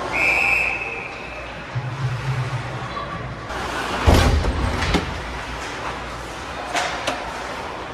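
Ice hockey play heard from behind the rink glass. A brief high whistle sounds at the start. About four seconds in there is a loud bang against the boards and glass, followed by lighter clacks of sticks and puck.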